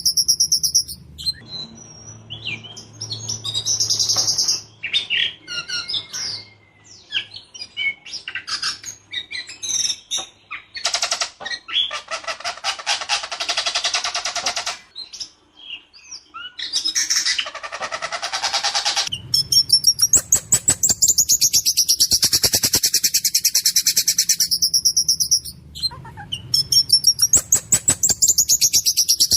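Ciung batu songbird in full song: loud, varied phrases of harsh chatter and whistles. From about two-thirds of the way in these give way to a fast, repeated rolling trill.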